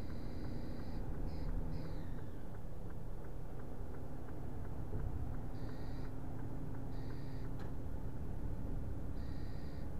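Car driving at speed: steady low road and engine noise, with brief high-pitched squeaks coming and going every second or two, one of them falling in pitch about two seconds in.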